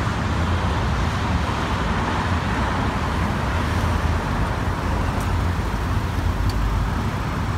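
Steady road traffic noise with a low rumble, as a sedan pulls up close by at the curb.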